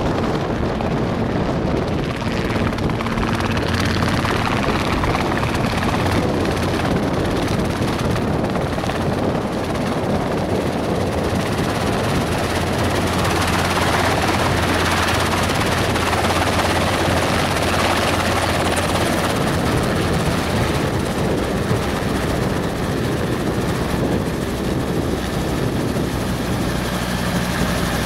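Small two-seat helicopter's rotor and engine running steadily as it flies in, hovers low and settles onto the pad, loudest about halfway through as it comes closest.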